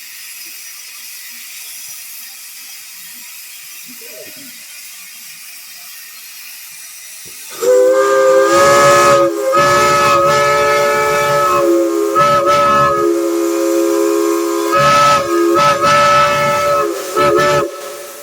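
Steam hiss, then a chime steam whistle sounding a chord of several steady notes. It comes in suddenly about seven and a half seconds in and holds for several seconds with brief dips, then breaks into a few short blasts near the end.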